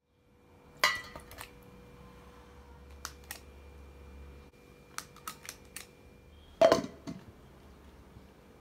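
Scattered clinks and knocks of food and utensils against a stainless steel blender jar as ingredients go in and the lid is handled, with two louder knocks about a second in and near seven seconds, over a faint steady hum.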